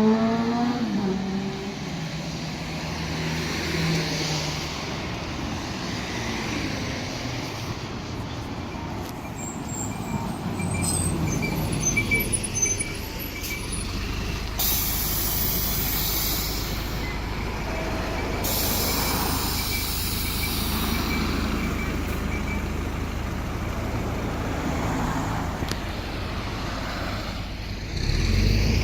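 A large vehicle's engine, likely a bus, running with a steady low rumble, with two bursts of air hissing midway, typical of air brakes or pneumatic doors being worked.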